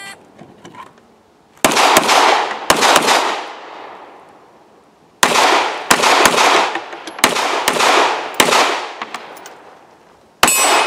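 A shot timer beeps once, then a handgun fires in several quick strings of shots, each shot trailing off in a long echo, with a last shot near the end.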